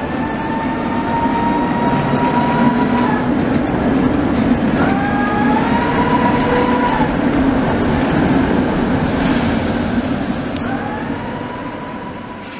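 Tatra T3 trams running on street track: a steady rumble of wheels on rails, with a whine that rises in pitch three times, at the start, midway and near the end. The sound fades over the last few seconds.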